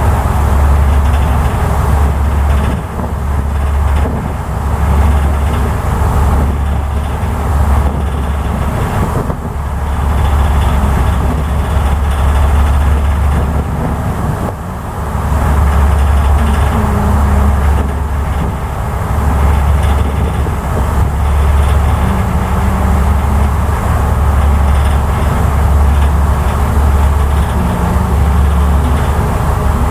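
Steady low rumble of a ferry under way, swelling and easing every second or two.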